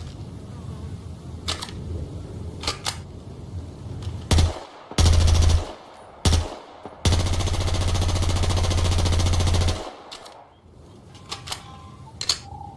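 FN P90 submachine gun firing on full automatic: a very short burst, a half-second burst, another very short one, then one long burst of nearly three seconds. A few separate sharp clicks come before the shooting and again after it.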